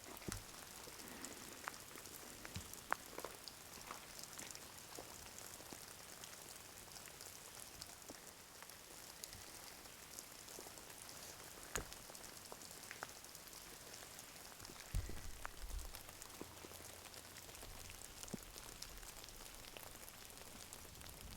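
Light rain: a soft, even hiss with irregular single drops ticking through it, a few sharper drips standing out about three, twelve and fifteen seconds in.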